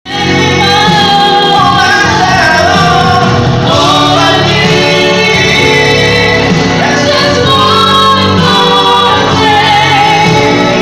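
A young man and a young woman singing a duet into handheld microphones over instrumental accompaniment, amplified through PA speakers.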